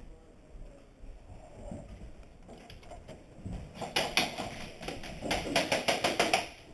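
Airsoft guns firing: a short string of rapid shots about four seconds in, then a longer, louder run of rapid shots at about eight a second that stops just before the end.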